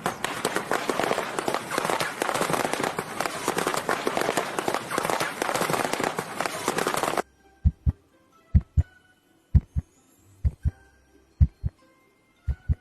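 Dense, loud crackling noise for about seven seconds that cuts off suddenly, followed by low double thumps about once a second, a heartbeat-like lub-dub, six beats in all.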